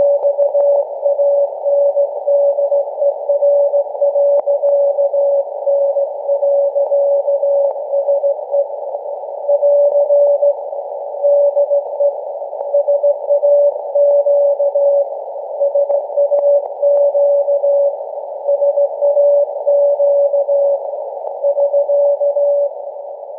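Morse code (CW) from SAQ Grimeton's Alexanderson alternator, received as very-low-frequency radio on a software-defined radio: a single steady beep keyed on and off in dots and dashes over a narrow band of receiver hiss. The keying stops near the end, leaving only the hiss.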